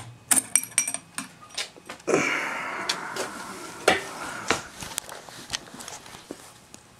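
Camcorder handling noise from fingers and hands on the camera body: a run of sharp clicks and knocks, with a stretch of rubbing rustle from about two seconds in.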